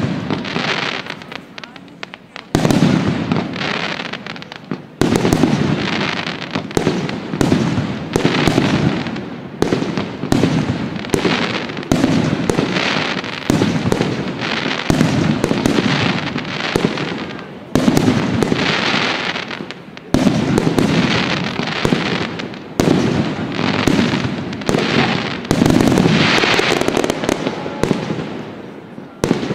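Fireworks display: aerial shells bursting in quick succession, a sharp bang about every one to one and a half seconds, each followed by a fading hiss.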